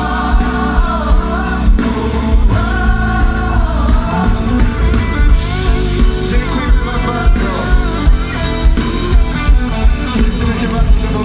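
Live pop band playing, with a lead singer and several backing vocalists singing over keyboard, guitar and a steady drum beat.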